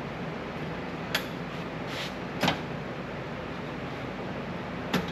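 Sheet-metal patch panel being bent on a magnetic sheet-metal brake: a few short, sharp metal clacks, the loudest about two and a half seconds in, over a steady low hum.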